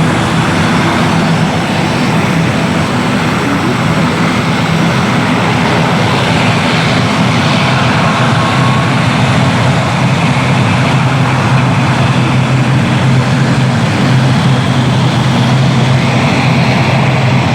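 Airliner engines running steadily, a loud continuous drone with a low hum that drops slightly in pitch about two-thirds of the way through.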